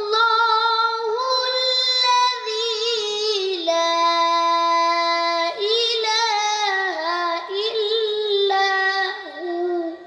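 A boy's solo voice singing a long, ornamented melodic line, with wavering held notes and a long low note in the middle, stopping near the end.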